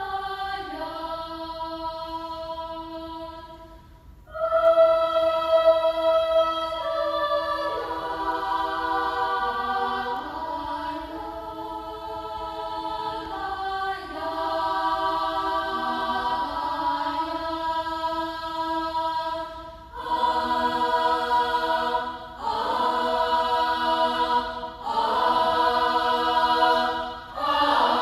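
Children's choir singing unaccompanied in several parts: long held chords that shift between phrases, with a brief break about four seconds in and shorter, clipped phrases with small gaps in the last third.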